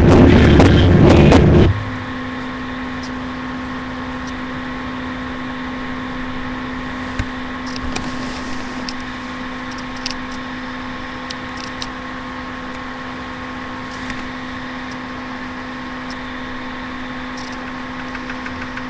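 Music cuts off about two seconds in, leaving a steady electrical hum with a faint pitched drone and a few faint clicks: background noise picked up by a laptop's built-in microphone.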